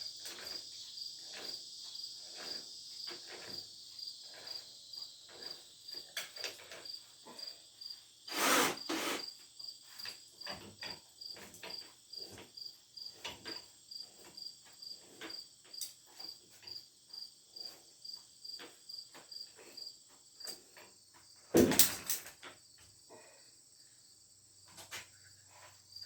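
Crickets chirping steadily, a regular pulse about two to three times a second, with two loud clattering knocks, one about eight seconds in and one about twenty-two seconds in.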